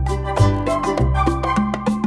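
Background music with a Latin-style beat: bass notes and regular percussion.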